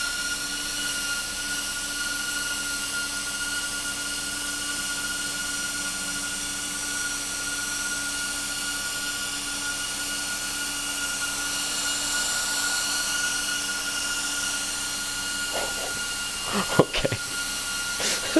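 Two high-speed computer fans running together, one blowing into a sealed plastic bag and one sucking it out: a steady whir with a high whine. The exhausting fan is winning. A few sharp knocks and crackles come near the end.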